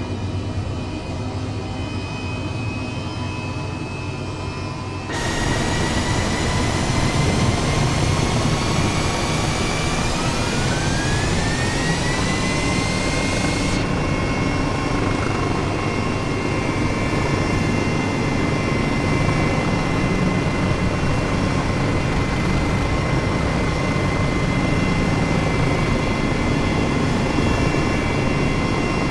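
Airbus helicopter's turbine engine running with a steady high whine. It jumps louder about five seconds in. About ten seconds in the whine rises in pitch as the turbine spools up, then holds steady.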